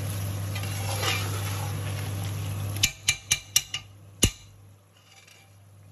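A metal spoon stirs and scrapes a thick curry in an aluminium pressure-cooker pot over a steady low hum, which stops about three seconds in. Then come a quick run of sharp metal clinks and one louder knock as the spoon is tapped against the pot and set on its rim.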